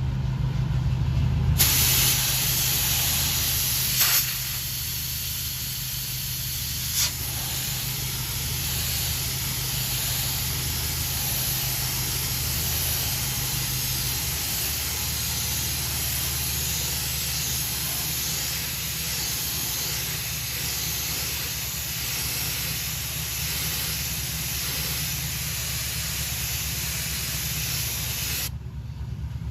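Paint being sprayed onto an alloy wheel: a long, steady spray hiss that starts about two seconds in and stops shortly before the end, with two brief clicks around four and seven seconds in. A low steady hum runs underneath.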